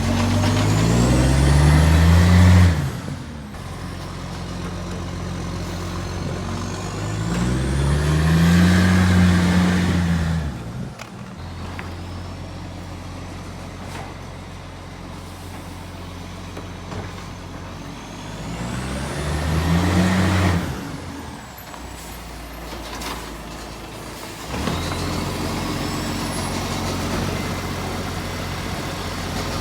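Garbage truck's diesel engine idling and revving up three times, each rev rising and dropping back. The truck has an exhaust leak. A steadier noise comes in about three-quarters of the way through.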